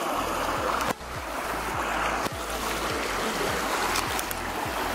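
Mountain stream rushing over rocks: a steady hiss of white water, with a brief sudden dip about a second in.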